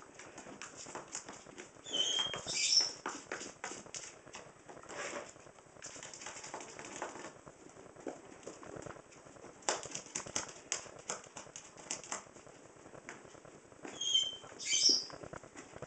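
A ferret digging through snow in a plastic tub: a fast run of scratching and crunching as its claws scrabble at the snow, with louder scrapes about two seconds in and again near the end.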